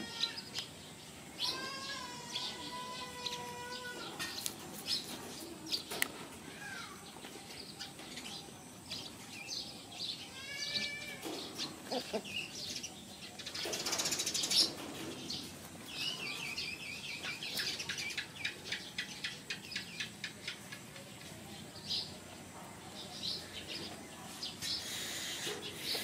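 Young puppies whining and squeaking in short high calls scattered throughout, with a brief rustle about halfway through.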